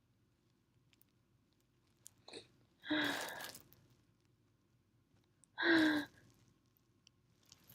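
A person sneezing twice, two loud sneezes about two and a half seconds apart, the first led in by a short sharp catch of breath; allergic sneezes brought on by sniffing a scented soap.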